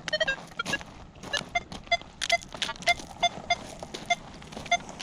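Nokta Legend metal detector giving short beeping target tones, several a second, as the coil is swept, mixed with sharp clicks and scrapes.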